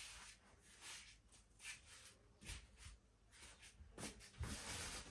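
Faint, irregular rustling with a few soft thumps.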